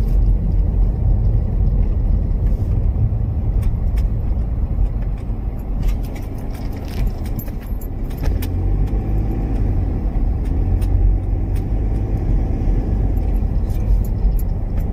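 Car cabin noise while driving slowly: a steady low rumble of engine and tyres on the road, with scattered light clicks and rattles.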